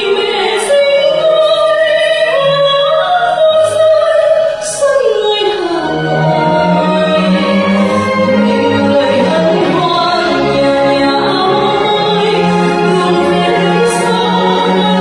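A lyric soprano sings a slow semi-classical art song live with a full symphony orchestra, holding long notes with wide vibrato over sustained strings.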